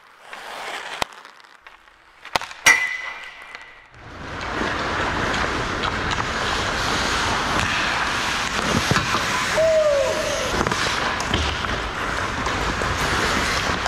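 Ice hockey play on a rink: skates scraping and carving the ice with stick and puck clatter, a steady hiss that starts about four seconds in. Before it come a few sharp knocks, one of which rings on briefly.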